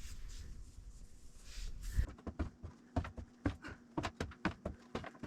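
A pet's quick, irregular footfalls, about two to three a second, starting about two seconds in: the pet coming down the stairs after being called.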